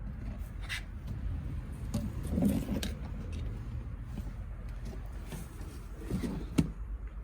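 Handling noises from work inside a car interior, where old carpet is being pulled out: scattered knocks and rustles, the loudest about two and a half seconds in and a sharp knock near the end, over a steady low hum.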